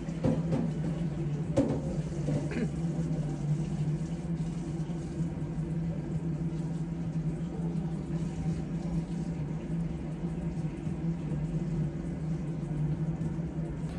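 Steady low hum with a few light clinks in the first three seconds.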